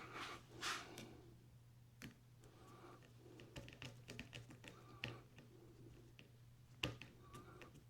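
Faint, scattered light clicks and taps of a fishing reel and small tools being handled, one click a little sharper near the end, over a faint steady hum.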